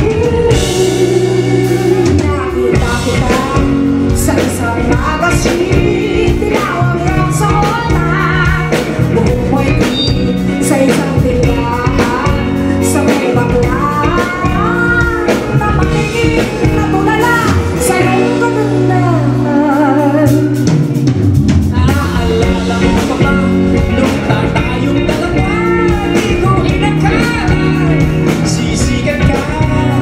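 Female and male vocalists singing live with a pop-rock band of drums and electric guitars, heard loud from the audience.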